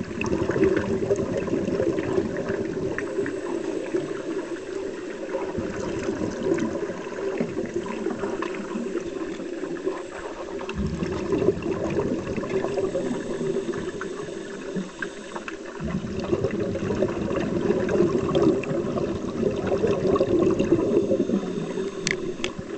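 Scuba regulator exhaust bubbles heard underwater: a continuous bubbling that surges about every five seconds as a diver breathes out.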